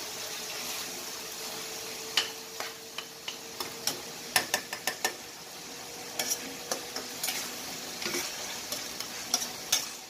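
Ground pork sizzling as it fries in a stainless steel frying pan, with a spatula scraping and clicking against the pan in short bursts of stirring.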